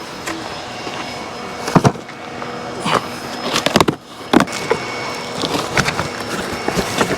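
Irregular knocks and clatter of objects being handled while setting up a campfire, over a steady mechanical hum.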